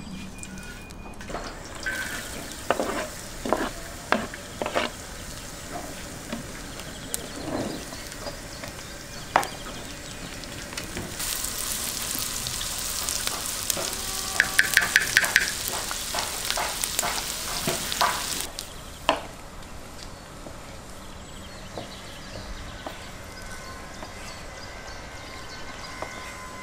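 Onions frying in hot fat in a wide steel pan: a loud sizzle starts about eleven seconds in and eases off about seven seconds later. Before and during it, a wooden spatula stirs, scrapes and taps against the pan, including a quick run of taps in the middle.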